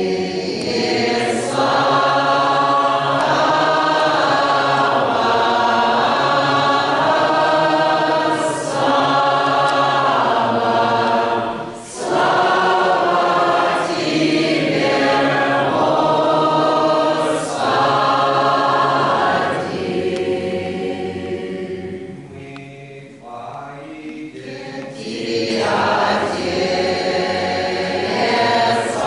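Doukhobor choir singing a hymn unaccompanied, many voices in held, slow harmony with short breaks between phrases. The singing thins and drops quieter about two-thirds of the way through, then swells back to full strength near the end.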